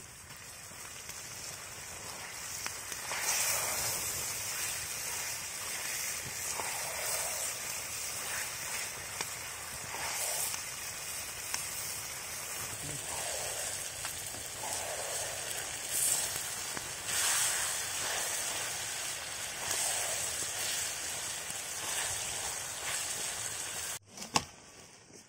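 Chicken and onion frying in butter in a wok over an open wood fire: a steady sizzle with occasional pops and crackles from the fire. It builds over the first few seconds and cuts off abruptly near the end.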